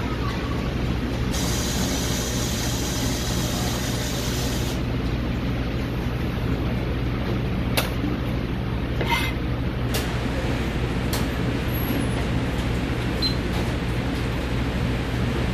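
Steady low machinery hum in a commercial kitchen, with a hiss for a few seconds near the start. About halfway through come a few light knocks as tomatoes are set down on a plastic cutting board.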